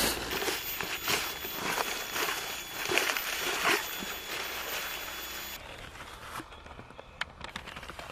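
Dry leaf litter crunching and rustling underfoot and under hands, with rough scrapes and knocks. The sound comes about once a second at first, then turns quieter and duller about halfway through.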